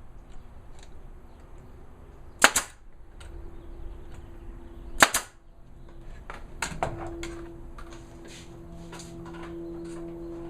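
Pneumatic nail gun firing twice, two sharp shots about two and a half seconds apart, driving nails into a wooden jig. Near the end a few lighter clicks and a steady hum begin.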